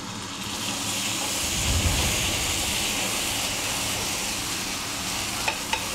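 Sake poured into a hot frying pan of shiitake mushrooms, hissing and sizzling hard as the alcohol boils off. The hiss swells about two seconds in as the pan flares into flame, then holds steady.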